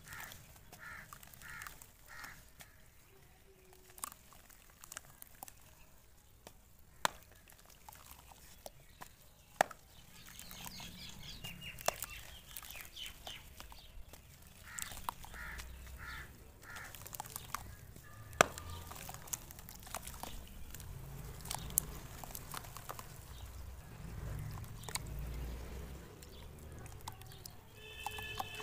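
Chunks of dry dirt crumbled and broken by hand into a tub of muddy water: crumbly crackles, sharp snaps and small splashes. Birds call in the background, short repeated calls near the start and in the middle, and another call near the end.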